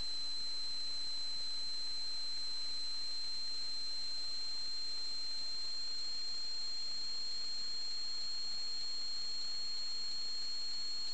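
A steady, unchanging high-pitched electronic whine over a constant hiss, with faint tiny ticks near the end.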